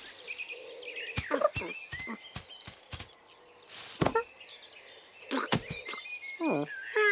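Cartoon sound effects of a cat scrabbling into a hay bale: a string of quick thumps and rustles. Birds chirp in the background, and a short falling cat-like vocal sounds just after six seconds.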